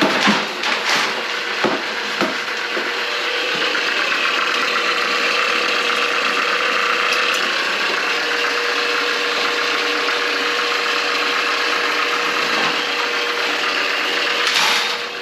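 Electric drain-cleaning machine running on a kitchen drain line clogged with grease: a few knocks and some clatter at the start, then a steady motor hum with rattling, which drops away near the end.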